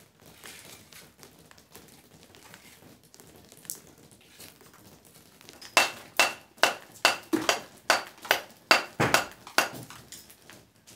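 Steel hammer striking a rubble stone held in the hand, trimming it to shape to fit a gap in the wall: about a dozen sharp blows at roughly three a second, several with a brief ring, starting a little over halfway through after quiet handling and one small knock.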